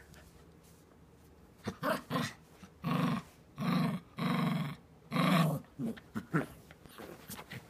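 Small curly-coated dog growling with a tennis ball in its mouth, guarding the ball from a hand reaching for it. It growls in a run of short rumbles, the longest about half a second each, starting about two seconds in and tailing off near the end.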